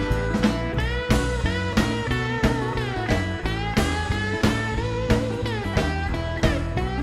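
Background music led by a guitar playing quick plucked notes, many of them bending or sliding in pitch, over a low bass line.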